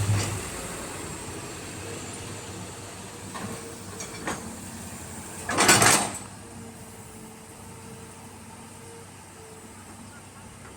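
Hydraulic excavator's diesel engine running steadily under work, with a few knocks and clunks and one loud, short rush of noise a little past halfway.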